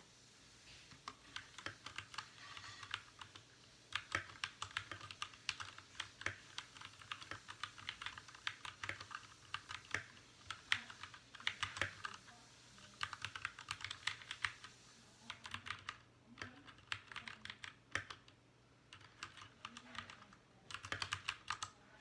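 Fast typing on a Royal Kludge RK61 60% mechanical keyboard: quick runs of keystroke clicks broken by short pauses.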